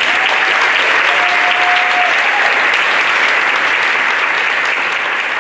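An audience breaks into loud, steady applause.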